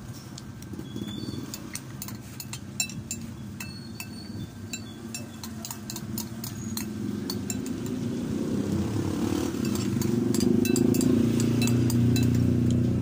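A metal spoon clinks and scrapes against a glass bowl in many light, quick taps, some ringing briefly. Under it a low motor rumble builds from about halfway through and is loudest near the end.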